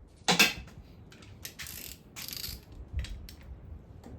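Sharp metal clank of a tool about a third of a second in, then a hand socket ratchet clicking in short runs and a quick rasping burst while a bolt is worked loose on the engine.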